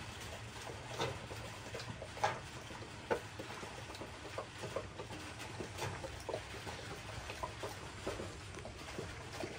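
Central Asian Shepherd dog (alabai) eating khash, chomping and smacking its jaws in irregular wet smacks, a couple a second.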